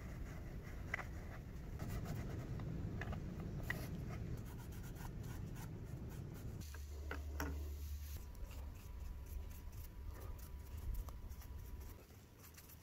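Gloved fingertip rubbing a gold finish onto a small laser-cut letter, a soft scratchy rubbing like writing, with scattered light clicks as the thin pieces are handled on the board.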